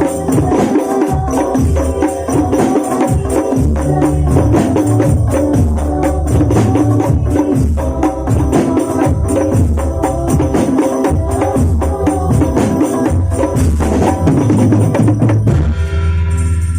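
Rebana ensemble playing: hand frame drums with tambourine jingles in a dense, fast rhythm over deep drum pulses. The percussion stops about a second before the end, leaving a held chord ringing and fading.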